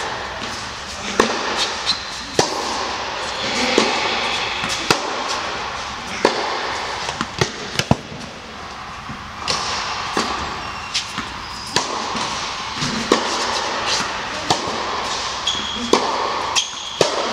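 Tennis ball struck back and forth in a rally on an indoor hard court, a sharp racket-on-ball pop about every second and a quarter to a second and a half, ringing in a large hall.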